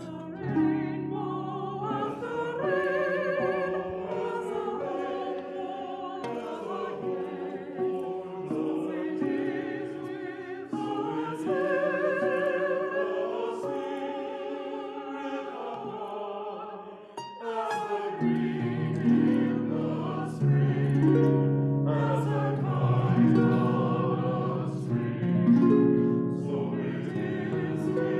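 Small mixed choir singing an anthem with harp accompaniment; about two-thirds of the way through the sound grows fuller and lower.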